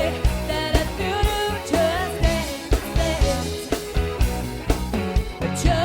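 Pop-rock band playing: a melodic lead voice sliding between notes over a steady drum beat, bass and guitar.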